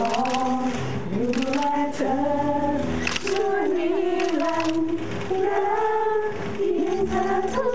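A young man singing solo, holding long notes that glide up and down in pitch, over steady low accompaniment notes.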